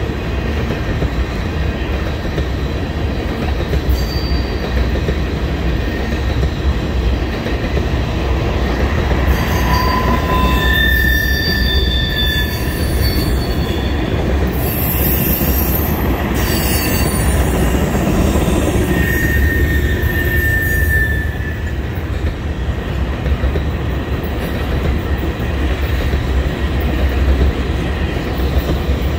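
Tank cars of an oil train rolling past, a steady rumble of steel wheels on rail. High wheel squeal sings over it in several pitches from about ten seconds in until about twenty seconds in.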